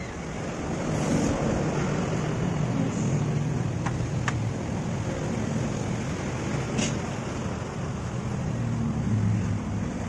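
A motor vehicle running nearby: a steady low rumble that swells in over the first second. A few light clicks from handling the plastic switch housing come about four seconds in and again near seven seconds.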